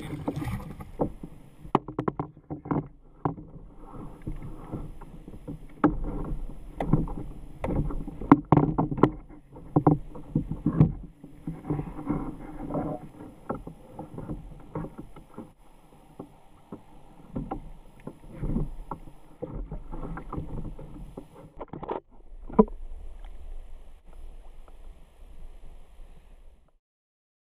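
Water splashing and slapping against a fishing kayak's plastic hull, with irregular knocks and clunks from handling on board. The sound cuts off suddenly near the end.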